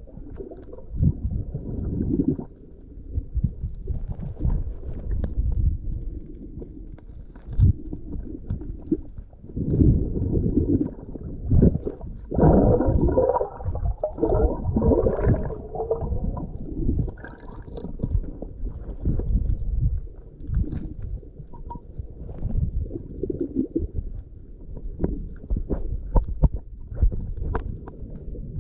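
Muffled underwater sound of sea water, rumbling and gurgling in irregular surges with occasional knocks, and a louder, busier stretch about halfway through.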